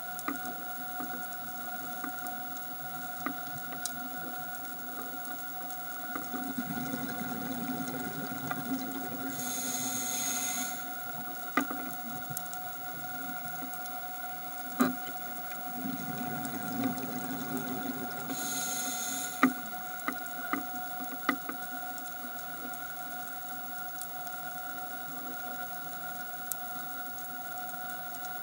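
A scuba diver's regulator underwater: twice a low bubbling rumble of exhaled air, each followed by a short hiss of inhaling, with scattered sharp clicks and a steady faint hum throughout.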